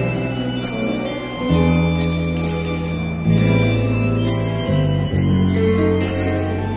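Small live band playing an instrumental passage on electronic keyboard, acoustic guitars and bass guitar, with a bass line changing notes every second or so and bright, sharp percussive strikes recurring on the beat.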